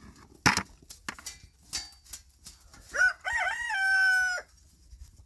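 A rooster crowing, a few short rising notes ending in one long held note, about three seconds in. Before it come a few sharp clicks and knocks.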